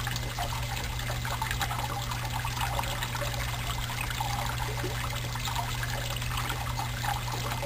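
Running water trickling and splashing steadily, with a steady low hum underneath.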